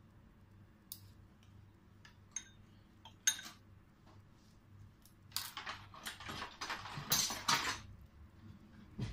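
A knife and fork clicking against a ceramic plate while a fried, breadcrumb-coated chicken-potato kabab is cut and handled. A few sharp clicks come in the first half, then about two and a half seconds of crackly scraping, and a single knock near the end.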